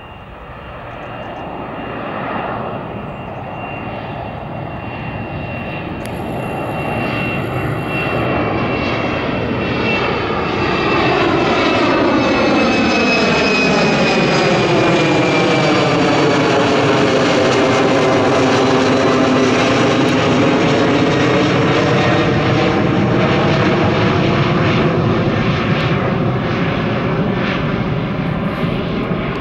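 Embraer E195 airliner climbing out after takeoff, its twin turbofan engines growing louder as it passes close overhead. A high fan whine slowly falls in pitch, over a rushing jet roar with a sweeping, phasing swoosh that dips and rises.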